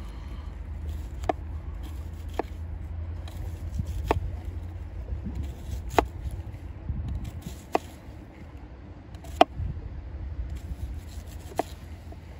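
Knife slicing a red onion on a wooden cutting board: a sharp knock each time the blade meets the board, seven in all, spaced one to two seconds apart, with soft rubbing and scraping in between, over a steady low rumble.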